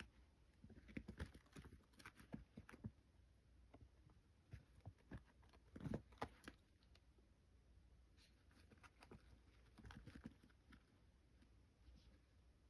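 Faint, irregular soft taps and scuffles of kittens playing, paws patting and scrambling.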